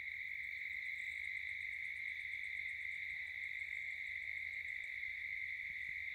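Crickets trilling in one steady, unbroken high tone, with a faint fast ticking, about six a second, over the first several seconds.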